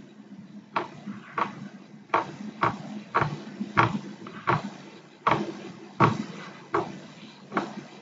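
About a dozen light, irregularly spaced clicks, like computer keyboard keys being pressed, over a faint low steady hum.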